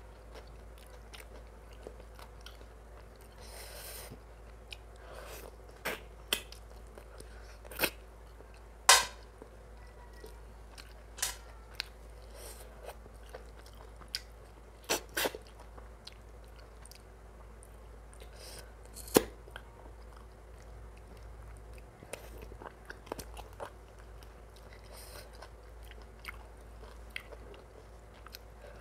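Close-miked chewing and biting of mutton curry with rice: wet mouth sounds with scattered sharp smacks, the two loudest about nine and nineteen seconds in.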